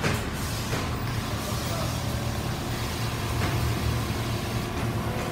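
Quilting machines running in a factory hall: a steady low machine hum under an even clatter, with a few short sharp clicks.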